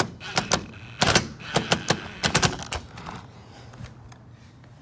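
Cordless impact driver driving a screw into the aluminum door frame, in a run of short rapid rattling bursts with a high motor whine. It stops about three seconds in.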